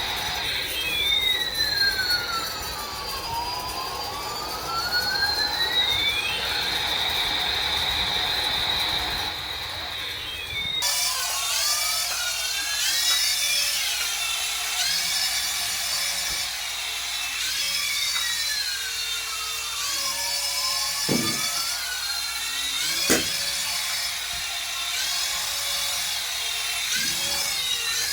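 A battery toy's electronic sound effects: a siren-like tone sweeping slowly up and down, then after a sudden change about eleven seconds in, a repeating pattern of gliding electronic tones. A few sharp clicks come in the second half.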